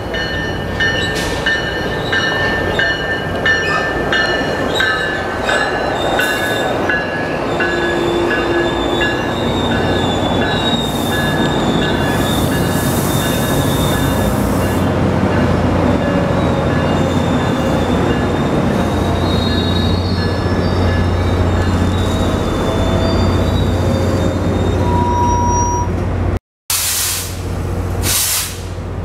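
Tri-Rail diesel push-pull commuter train braking into a station, its steel wheels and brakes squealing in several high steady tones. A low steady drone from the diesel locomotive grows as it passes and comes to a stop. The sound cuts out briefly near the end.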